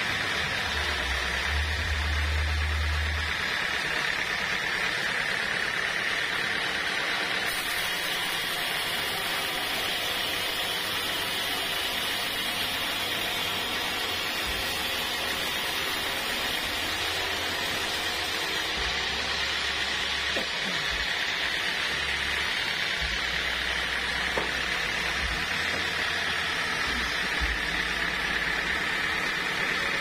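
Homemade band sawmill's blade cutting lengthwise through an acacia log, a steady, unbroken saw noise.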